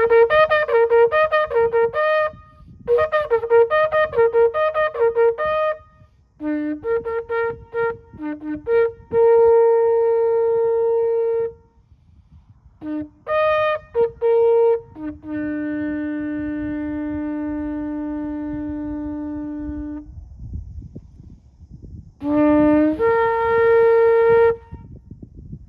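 A shofar is blown in a series of calls. It opens with two runs of rapid staccato blasts, then plays short notes that each end in a long held blast. One of these long blasts, on the lower note, lasts about five seconds. Near the end comes another quick run that ends in a held note.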